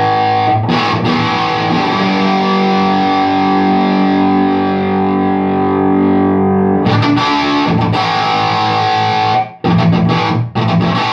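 Electric guitar played through a modded Orange Tiny Terror valve amp. One chord rings for about six seconds, its treble dulling as it fades, then a few fresh strums and short chopped chords near the end.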